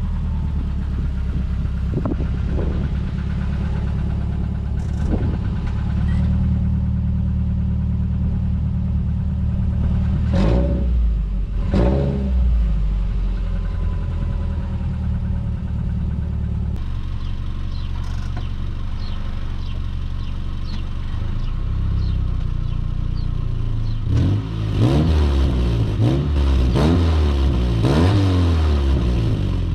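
Subaru boxer engine running at the tailpipe with its exhaust pipe broken in two, idling with a few short blips of the throttle. About halfway through, the same car with the break joined by a stainless butt-joint band clamp idles, then is revved up and down several times near the end.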